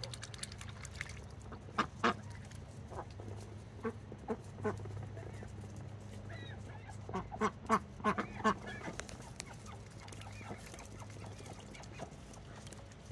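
Domestic ducks quacking in short, separate calls: a few scattered ones, then a quicker run of quacks, over a low steady hum.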